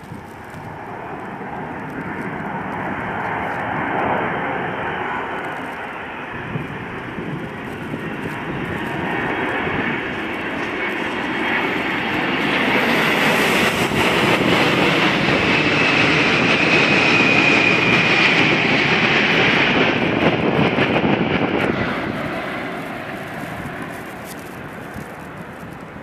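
A low-flying four-engine jet transport plane passing overhead: a loud jet rumble that builds slowly, peaks about halfway through with a high whistle over it, and fades away near the end.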